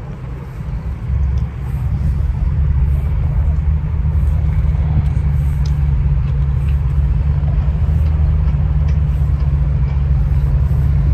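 A loud, steady low rumble, a little weaker in the first second or so.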